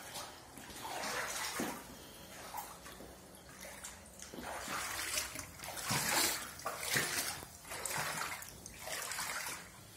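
Muddy floodwater on a floor splashing and sloshing in repeated short swishes, roughly one a second.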